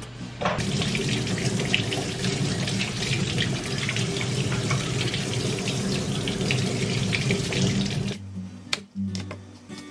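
Kitchen tap running onto green apples as they are rubbed clean by hand under the stream in a stainless steel sink. The water starts about half a second in and shuts off abruptly about eight seconds in.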